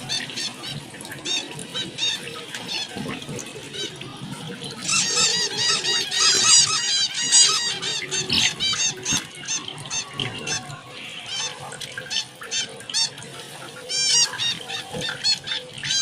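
Small pet cage birds chirping in quick, repeated short calls. The chirping becomes a dense chatter from about five to ten seconds in, and there is another burst near the end.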